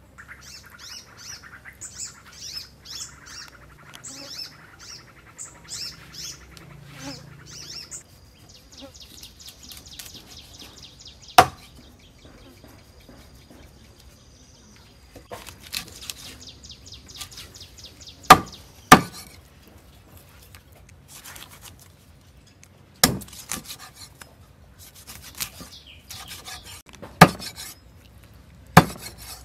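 Knife striking a wooden chopping board while cutting fish: about half a dozen sharp knocks, the first about 11 seconds in, with quieter cutting and handling sounds between them. Birds chirp for the first several seconds, and a high steady insect buzz follows for several seconds.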